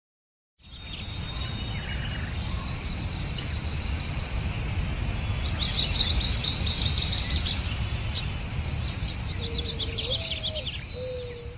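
Woodland birdsong: several small birds chirping and trilling, over a steady low rumble. A few faint low held notes come in near the end.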